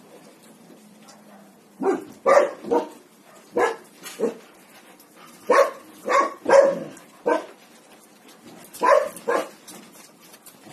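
A dog barking: about ten short, sharp barks in groups of two or three, starting about two seconds in.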